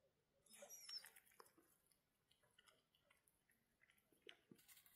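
Near silence: faint scattered clicks and rustles, with a brief high squeak about a second in.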